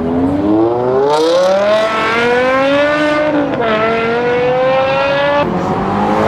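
A BMW 5 Series sedan's high-revving engine accelerating hard away, its pitch climbing, dropping sharply at a gear change about three and a half seconds in, then climbing again before cutting off near the end.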